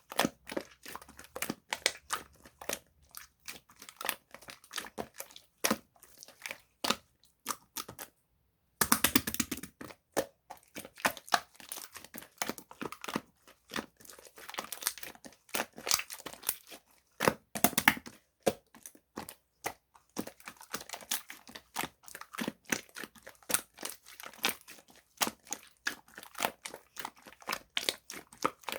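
Slime being mixed with whipped-cream clay and squeezed by hand, giving off rapid, irregular crackling and popping clicks as air pockets burst, with a brief silent pause about eight seconds in.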